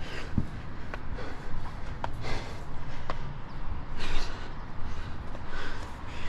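A climber breathing hard in heavy breaths every second or two, over a steady low rumble of wind on the microphone, with a few sharp taps of hands and shoes on the roller coaster's steel track rungs.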